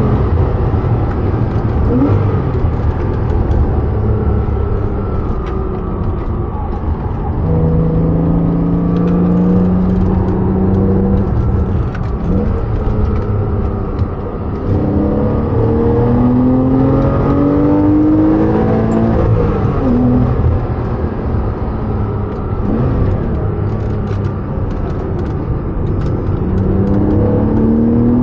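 Porsche 987.2 Cayman S's 3.4-litre flat-six engine under hard acceleration, revs climbing in repeated rising sweeps through the gears, with a stretch of steady revs about a third of the way in.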